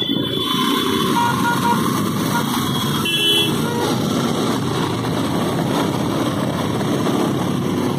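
Motorcycle engine running as the bike creeps through dense traffic, with short horn toots from the surrounding vehicles near the start and again about three seconds in.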